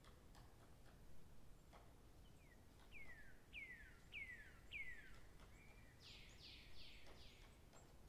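A small bird singing faintly: a run of four or five clear whistled notes, each falling in pitch, then, about 6 seconds in, four quicker, fuller notes that also fall. Faint scattered ticks sound in the background.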